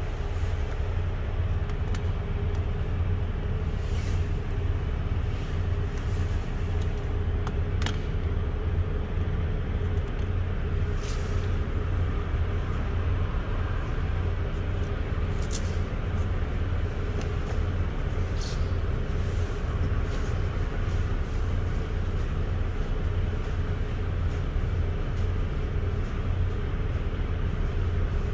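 Steady low drone of a running engine, heard from inside an empty metal refrigerated trailer, with a few sharp ticks now and then.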